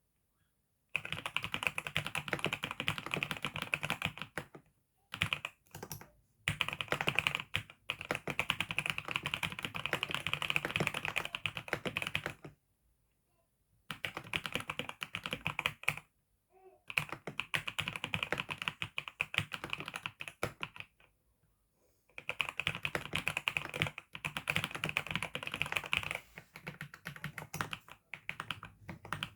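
Rapid typing on a computer keyboard: long runs of quick keystrokes broken by brief pauses of a second or two.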